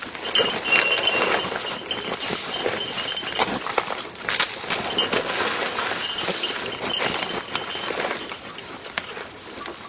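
Rustling and crackling of scrub and twigs as someone pushes through undergrowth on foot. A hunting dog's collar bell rings on and off as a high steady tone, in short stretches throughout.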